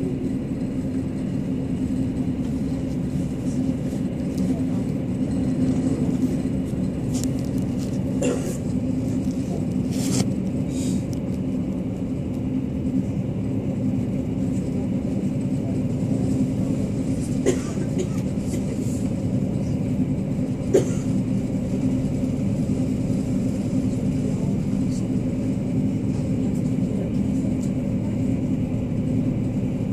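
Regional train running at speed, heard from inside the passenger car: a steady rumble of wheels on rail with a constant low drone. A few sharp clicks stand out, the loudest about two-thirds of the way through.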